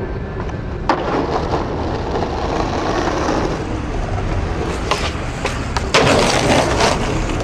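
Skateboard tricks on concrete: a sharp slap of the board landing about a second in, then the wheels rolling. Near five seconds comes a click like a pop, and about a second later a louder landing followed by loud rolling.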